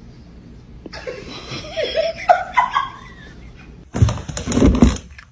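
A person laughing and snickering, followed about four seconds in by a short, loud burst of clattering, rustling noise.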